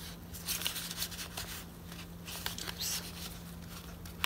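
Paper rustling and scraping in short, irregular strokes as a card tag is slid into a snug paper pocket of a junk journal, with a steady low hum underneath.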